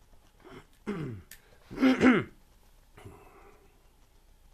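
A man clearing his throat: a short low sound about a second in, then a louder one just after.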